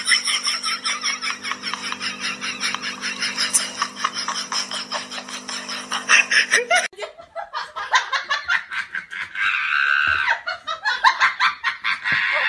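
People laughing in rapid ha-ha pulses, with a steady low hum underneath. About seven seconds in it cuts to different, lighter laughter and giggling.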